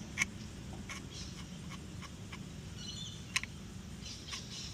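Two sharp clicks about three seconds apart, with faint bird chirping in the background.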